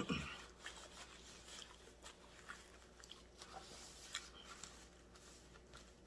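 Faint chewing of a mouthful of steak and cheese sub, with soft, scattered wet mouth clicks over a low steady room hum.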